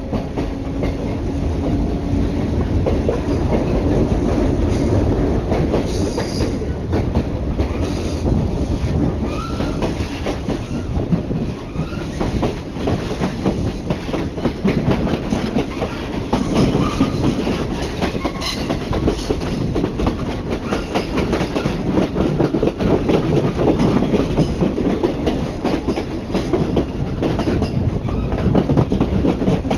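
Electric train running on rails, heard through an open carriage window: a steady rumble with wheels clacking over rail joints and points. It grows louder over the first few seconds as the train pulls away from the station and gathers speed, with a few faint wheel squeals.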